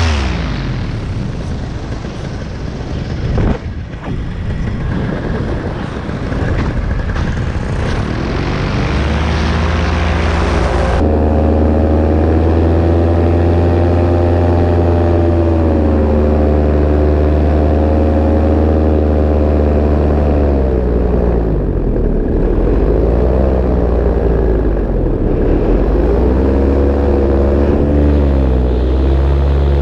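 Paramotor engine and propeller running in flight, with wind rushing over the microphone. The engine's pitch drops right at the start, leaving mostly wind noise for the first few seconds. About a third of the way in the engine hum comes back strong and steady, then dips and rises again several times near the end as the throttle is worked.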